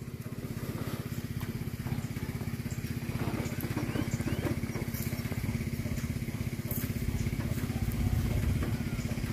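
Kato crawler excavator's diesel engine running steadily, a low even pulsing hum.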